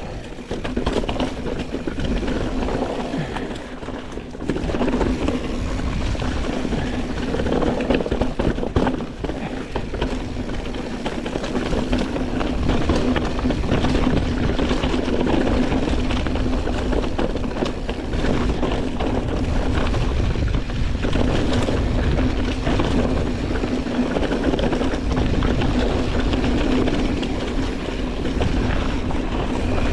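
A full-suspension mountain bike running fast down a rough dirt trail: tyres roll over dirt, and the chain and frame rattle over roots and rocks, with a steady hum underneath. Wind buffets the microphone with a low rumble.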